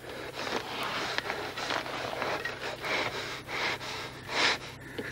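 Heavy, irregular breathing and snorting from the sleeping chorus of Furies, with one louder breath about four seconds in, over a steady low electrical hum.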